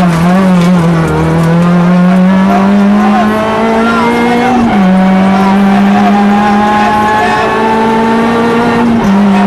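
Rally car engine heard from inside the cabin at full power. Its pitch wavers briefly, then climbs steadily as the car accelerates, dropping sharply at an upshift about halfway through and again near the end.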